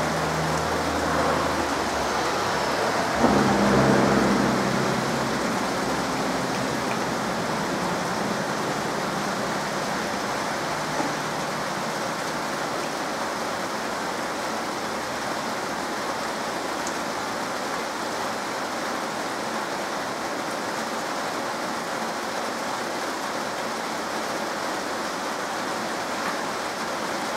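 Steady heavy rain falling on leafy trees, an even hiss of rainfall. About three seconds in, a brief louder swell with a low rumble rises over the rain and fades within a couple of seconds.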